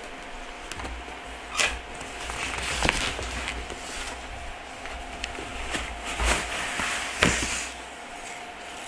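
Packaging being handled as something is lifted out of a cardboard box: rustling with a few sharp knocks, about four of them, over a faint steady hum.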